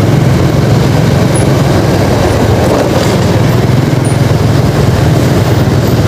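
Motorcycle riding through city traffic: a steady engine drone with road and wind noise, strongest in the low range and unbroken throughout.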